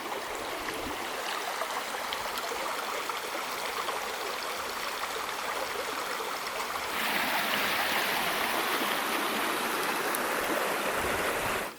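Forest stream or small river running steadily, a continuous rush of water. The rush grows louder and brighter about seven seconds in.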